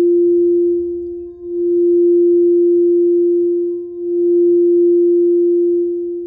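Frosted quartz crystal singing bowl sung by a wooden mallet rubbed around its rim: one sustained mid-pitched tone that swells and dips about every two and a half seconds.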